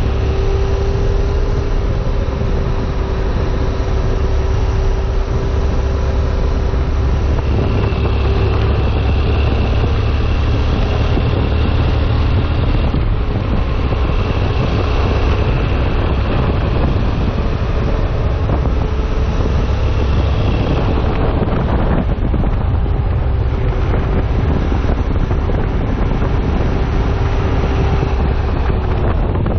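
Honda NC700X motorcycle's parallel-twin engine running at a steady cruise, with wind rushing over the microphone.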